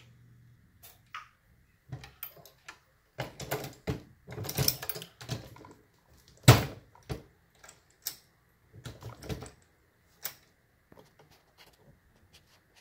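Dillon RL550B reloading press worked by hand: clicks and metallic clunks of the lever, shellplate and dies in irregular clusters, with one sharp, loud clack about six and a half seconds in. A primer is being forced into a tight military-crimped case, which makes the stroke stiff.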